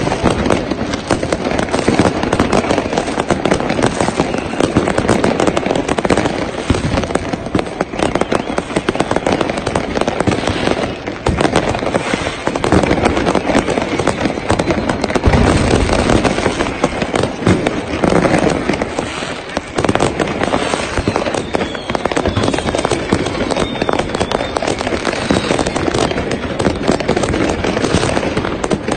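A dense, unbroken barrage of fireworks and firecrackers: rapid crackling and bangs with no let-up.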